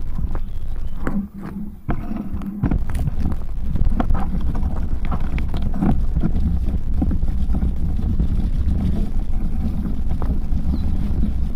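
Bicycle riding over a bumpy dirt trail: the bike rattles and knocks over the rough ground, with wind rumbling on the microphone. The sound drops away briefly a little over a second in.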